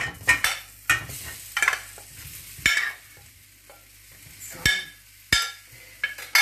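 Mango slices dropping into a hot stainless steel pan of oil and toasted mustard seeds and sizzling as they start to fry, while a spoon scrapes and knocks against the glass bowl as they are tipped out. Several sharp knocks stand out over the sizzle.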